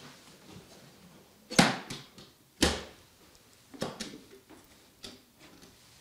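Two sharp wooden knocks about a second apart, then a few lighter knocks and bumps: old wooden chests being handled and shifted on a plank floor.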